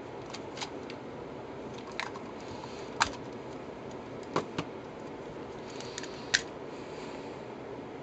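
Hard plastic LEGO Technic parts and remote controls clicking and knocking as they are handled: a handful of short sharp clicks, the loudest about three seconds in, over a steady hiss.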